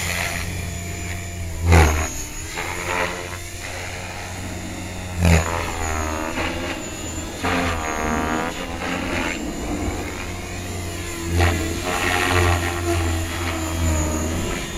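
Align T-Rex 550 electric RC helicopter flying aerobatics: the motor and rotor whine keeps rising and falling in pitch as the collective is worked. It has a steady low hum underneath and sudden loud swells about two, five and eleven seconds in.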